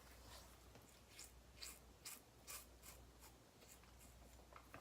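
Faint rubbing strokes, about two a second, over near silence.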